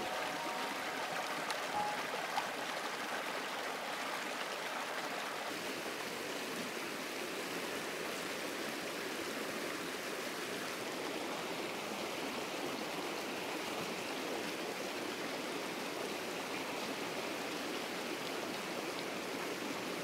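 A small rocky stream rushing and splashing over stones in a steady, unbroken wash of water.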